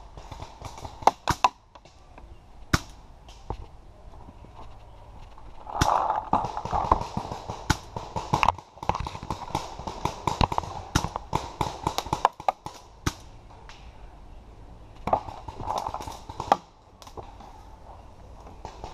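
Sharp pops of paintball markers firing, scattered singly early on and then in quick clusters, mixed with scuffing footsteps and gear rattle as the player moves up and crouches behind a wooden bunker.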